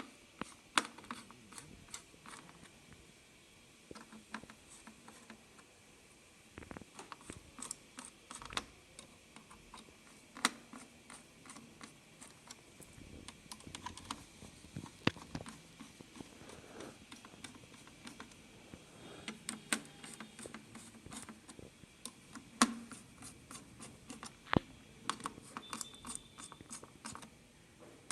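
Irregular light clicks and taps of hands working on a laptop, with a few sharper clicks among them.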